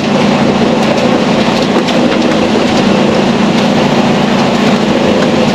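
Mercedes-Benz Actros SLT truck's diesel engine running as a steady drone, heard inside the cab, with scattered light clicks and rattles as it rolls along a gravel track.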